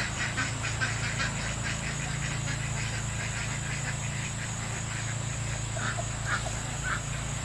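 A quick, even series of short animal calls, about five a second, fading away over the first two seconds, then three single calls near the end, over a steady low hum.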